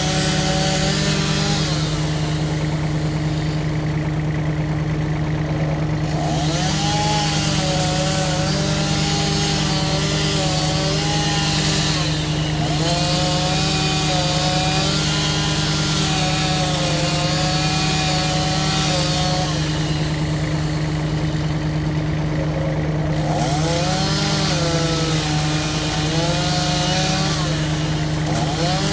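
Chainsaw running and cutting through tree trunk wood, its engine note wavering as the chain bites. The cutting hiss eases twice, a few seconds in and again about two-thirds of the way through, before the saw goes back into the wood.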